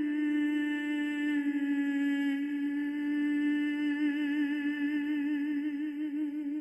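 A single sustained humming tone with many overtones, like an eerie synth drone. It dips slightly in pitch about a second and a half in and starts to waver from about four seconds in.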